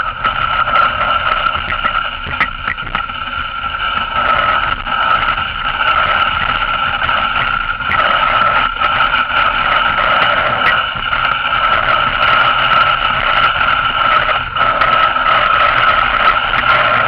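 Dog sled gliding over packed snow: a steady high whine and hiss from the runners, with scattered knocks and rattles as the sled bumps along.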